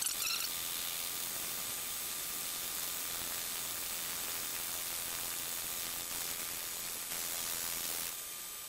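A tool bit on a 1952 Logan 920 metal lathe takes a power-fed cut along a spinning hemlock log, making a steady hiss of wood being cut and chips flying, with a faint steady tone under it. The hiss tapers off near the end.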